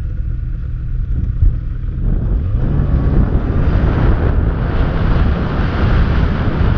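Snowmobile engine running as the sled pulls away, its pitch rising about two and a half seconds in, with wind rushing over the helmet-mounted microphone.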